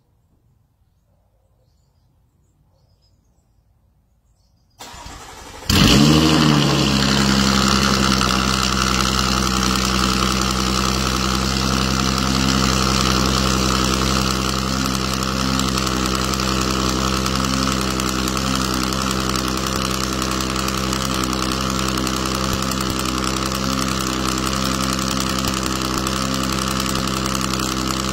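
Audi A7 3.0T's supercharged V6 started through an ARMYTRIX cat-back valved exhaust. The starter cranks for about a second, about five seconds in. The engine catches with a loud flare that drops back within a second or two, then idles steadily.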